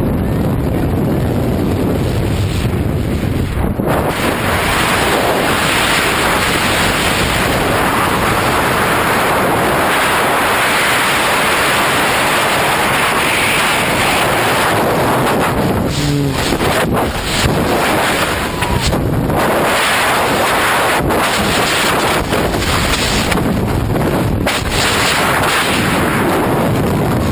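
Loud, steady wind noise buffeting the camera's microphone in skydiving freefall, with a few brief gusts of buffeting in the second half.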